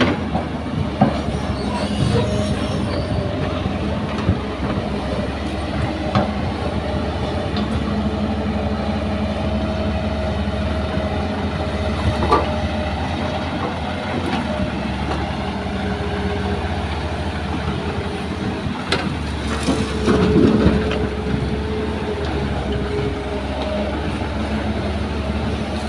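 Diesel engines of a crawler excavator and a small Isuzu dump truck running steadily, with a droning whine and a few sharp knocks. A short louder surge comes about twenty seconds in.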